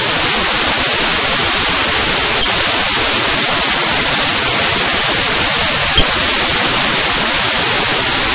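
Loud steady hiss of white noise, brightest in the high end, with a faint click about six seconds in.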